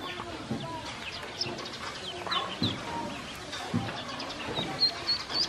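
Ducklings peeping: short high cheeps, several dropping in pitch, then a quick run of peeps near the end, mixed with a few dull knocks.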